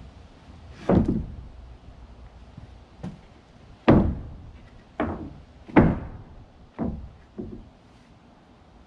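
Loose wooden ramp boards knocking and thudding as they are handled and stepped on, about seven separate hits spaced a second or so apart, the loudest near the start and around the middle.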